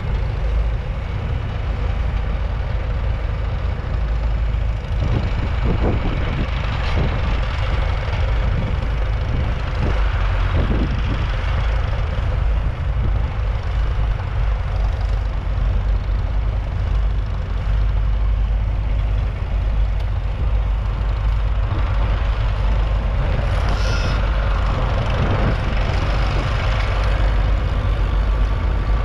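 The 3.8-litre four-cylinder diesel engine of a Leyland 802 tractor runs steadily under load while pulling a plough. A few brief knocks come between about five and eleven seconds in.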